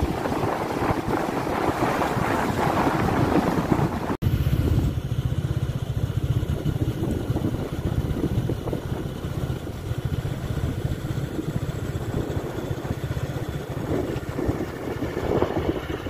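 Strong wind buffeting the microphone, a steady rumbling noise. It cuts out for an instant about four seconds in and comes back with a heavier low rumble.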